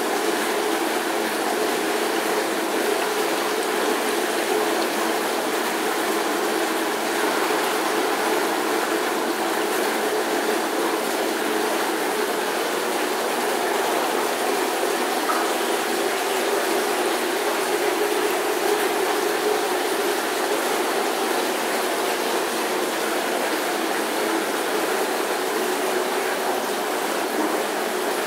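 Steady rushing of water with a pump-like hum, the running water and aeration of a koi holding tank, even and unbroken throughout.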